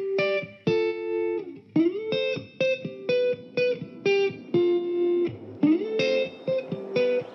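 Background music: a plucked guitar melody of short notes, some sliding up into pitch.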